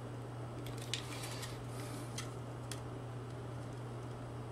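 A few faint clicks and light scrapes from an orange box cutter on a blind slat as it is set to cut the slat, over a steady low hum.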